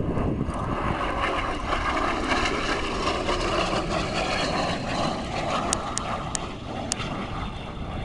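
Aero L-39 Albatros jet trainer flying past, its single turbofan engine making a rushing jet noise with a whine. It builds about a second in, is loudest midway, then fades as the jet moves away.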